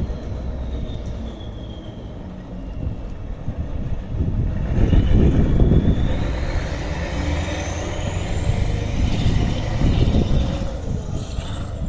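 Kirovets articulated tractor's diesel engine running under load as it moves, getting louder about four seconds in, with a high whine that climbs in pitch over the next few seconds.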